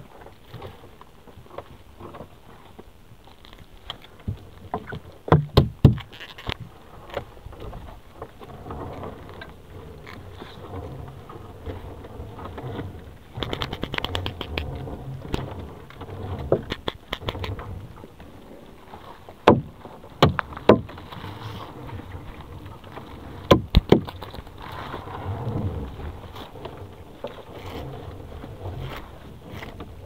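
Wet gill net being hauled and handled aboard a small fishing boat: rustling and scraping of the net and gloved hands, with a few sharp knocks against the boat scattered through, over a low rumbling background.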